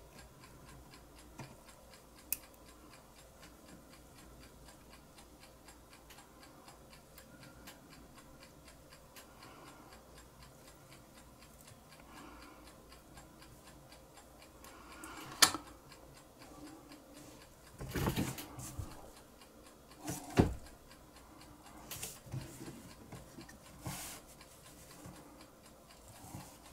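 A clock ticking steadily in a quiet room. In the second half come a few sharp clicks and short rustles from small lighter parts being handled and worked with tweezers; the loudest click is about halfway through.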